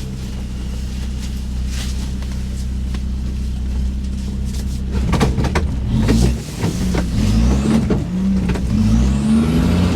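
An off-road 4x4's engine runs steadily, then from about five seconds in is revved hard again and again, the pitch rising and dropping with each push, with a few knocks among them. The revving is the vehicle trying to drive out of sinking sand it has bogged down in.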